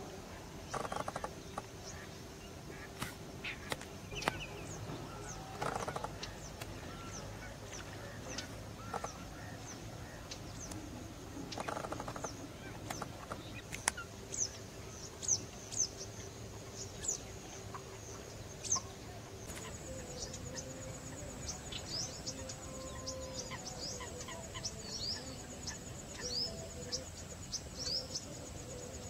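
Wetland birds calling: many short, high chirps from small birds throughout, with a few louder, lower calls about 1, 6 and 12 seconds in.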